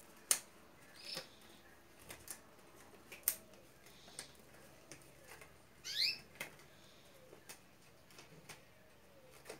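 A glove being worked onto a hand: quiet, scattered crackles and clicks of the glove material being handled and pulled, with a short rising squeak about six seconds in.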